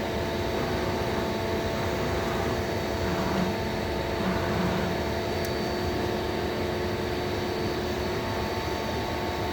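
Mazak Quick Turn 8N CNC lathe running: a steady machine hum with several steady whining tones held throughout.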